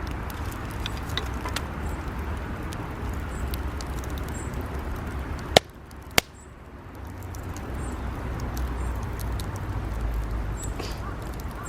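Campfire of scrap wood burning with a steady rush and many small crackles, and two loud sharp pops about halfway through.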